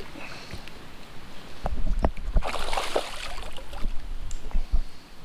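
Water splashing and sloshing around an inflatable packraft, with a few knocks and bumps; the loudest splash comes about halfway through.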